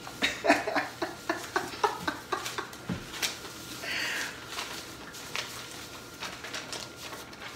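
Quick scratches and taps of pens writing on paper, several a second, with paper being handled, and a brief louder rustle of sheets about four seconds in.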